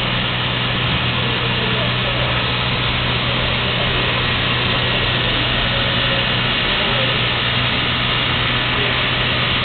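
Steam locomotive of PKP class Ol49 being fired up, a jet of steam hissing steadily and loudly from a vent on top, with a steady low hum underneath.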